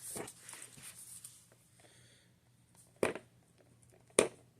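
Paper rustling as planner pages and sticker sheets are handled, followed by two sharp taps about a second apart near the end.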